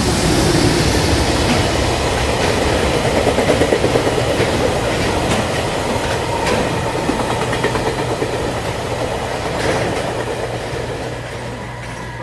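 Train rolling past, its wheels clicking over rail joints now and then; loudest a few seconds in, then slowly fading.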